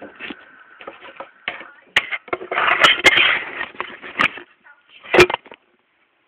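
Handling noise of a phone being moved and propped up: rustling and scraping with several sharp knocks, loudest about three seconds in and again about five seconds in.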